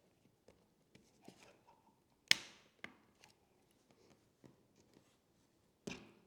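Hands handling a new M.2 NVMe SSD and the open laptop during installation: soft taps and small clicks, with a sharp click a little over two seconds in, a lighter one just after, and another loud click near the end.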